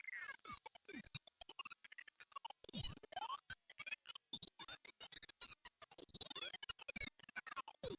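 Hearing-test frequency sweep: a single loud, high-pitched pure electronic tone rising slowly and steadily in pitch.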